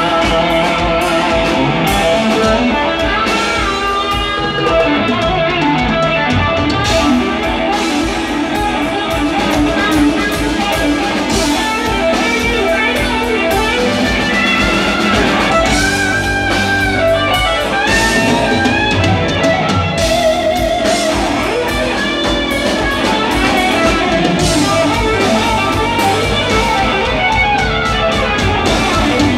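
Live rock band playing an instrumental passage: an electric guitar from a Telecaster-style guitar plays a lead line with string bends over a drum kit, recorded loud from the audience.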